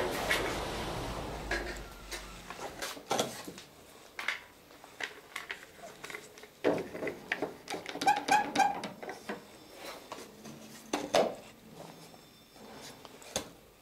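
Workshop handling noise as a thin plywood plank template is fitted and clamped against a wooden boat's keel and stem: scattered wooden knocks, taps and clicks. A short run of quick, higher-pitched clicks comes about eight seconds in, and sharper single knocks come near the end.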